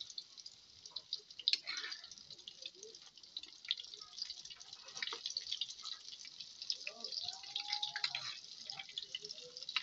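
Banana-blossom fritters deep-frying in hot oil in a wok, sizzling and crackling with many small pops and a few louder ones, while a metal spatula stirs them.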